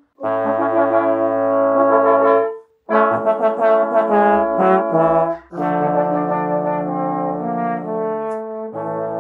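Trombone quartet, three tenor trombones and a bass trombone, playing held chords in phrases with brief breaks between them. A busier passage of shorter notes comes around the middle.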